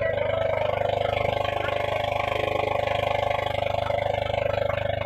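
Motorised outrigger boat's (bangka's) engine running steadily under way, with a fast, even pulse and a steady hum.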